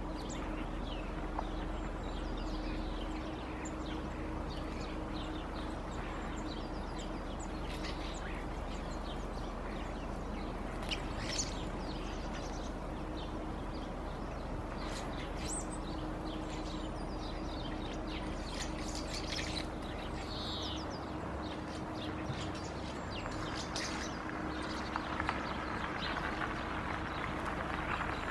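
Small birds calling and chirping in short, scattered notes, from a mixed flock of songbirds feeding on the ground, over a steady background hum.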